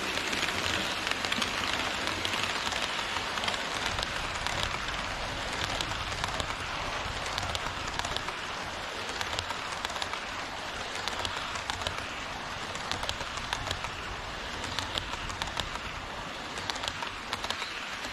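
Passenger cars of an HO scale Twilight Express model train rolling past on KATO Unitrack. The wheels on the rails make a steady rattling rush with many small clicks.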